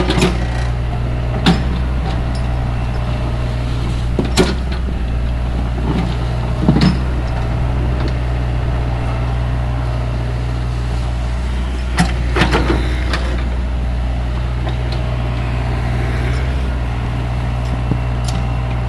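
Tatsuo JP80-8 excavator's diesel engine running steadily as it digs soil, with a few sharp clanks as the arm and bucket work.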